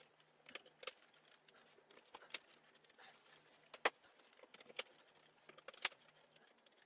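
Faint, scattered knocks and clicks from particleboard bookcase panels being handled and fitted together, about six in all, the sharpest a little under four seconds in.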